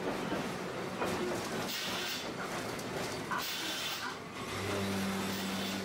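Tosaden tram 604 running along street track, heard from inside the cab: steady rolling and running noise with a few brief hisses, and a steady low hum setting in near the end.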